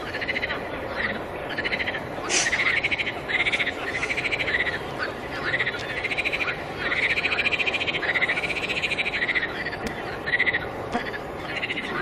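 A chorus of frogs calling: short pulsed croaks repeated over and over, several overlapping, over a steady background hiss.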